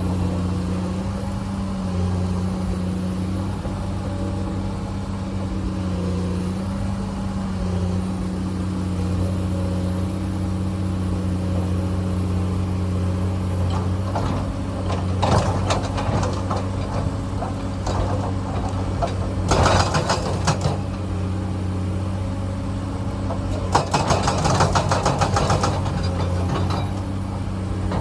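Komatsu excavator's diesel engine running steadily, with three bursts of clattering and scraping from the bucket working rock in the second half.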